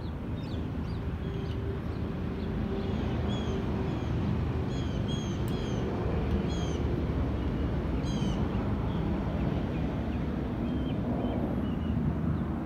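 A northern mockingbird singing short chirping phrases, several repeated alike, over a steady low rumble.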